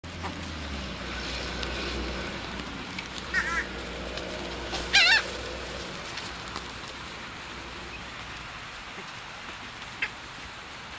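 White ibis giving two short honking calls with a wavering pitch, a softer one about three seconds in and a louder one about five seconds in, over a low steady background rumble that fades about halfway through.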